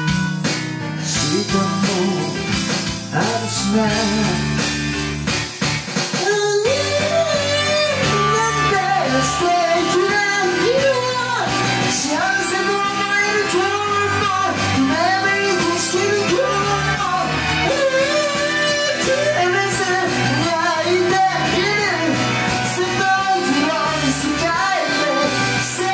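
A man sings into a karaoke microphone over a karaoke backing track. The first six seconds or so are instrumental only, and then his amplified voice comes in and carries the melody over the band.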